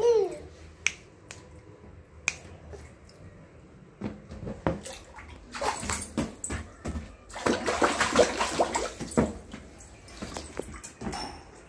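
Water splashing in a small inflatable paddling pool as a toddler slaps at it with his hands. Scattered sharp slaps come first, then a longer spell of louder, continuous splashing past the middle.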